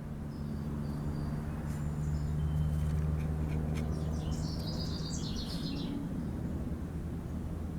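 Small birds calling outdoors: a few faint short high whistles, then a quick high trill about four to six seconds in, over a steady low hum.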